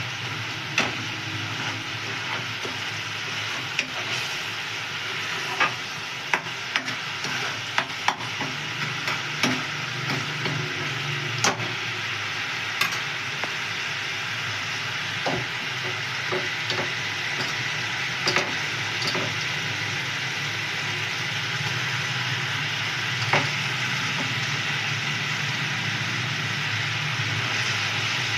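Ridge gourd (tori) sabzi sizzling in hot oil in a pan, with a spatula clinking and scraping against the pan now and then as it is stirred, more often in the first half.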